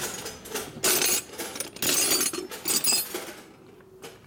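Steel combination wrenches clinking and clattering against each other as they are sorted through to pick out one, several clatters over the first three seconds, then quieter.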